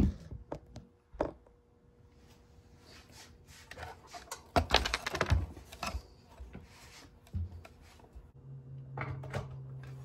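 Plastic clicks and knocks as a Honeywell tower space heater's base is handled and its bottom pin fitted, the loudest knocks coming about halfway through. About eight seconds in, a steady low hum starts as the heater is switched on and runs.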